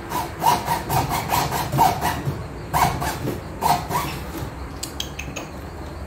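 Serrated bread knife sawing back and forth through a soft, rain-soaked MDF cabinet panel: short rasping strokes in quick runs, thinning out and fading after about four seconds.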